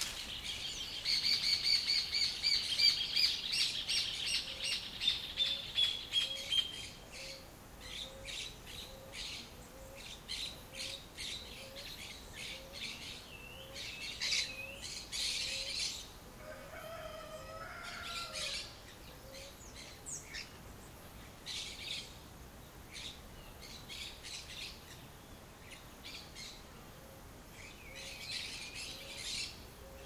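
Wild countryside birds singing and calling. A loud, rapid trill of repeated notes that slowly falls in pitch runs through the first several seconds, followed by many short chirps and calls.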